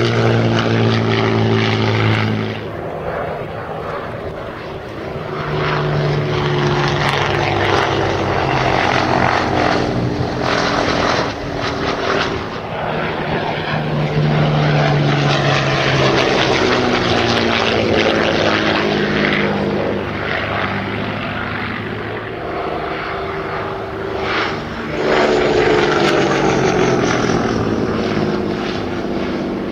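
Hawker Nimrod biplanes' Rolls-Royce Kestrel V12 piston engines flying past in a display, the propeller-engine note falling in pitch as each pass goes by. It fades somewhat a few seconds in and swells loudly again near the end with a fresh pass.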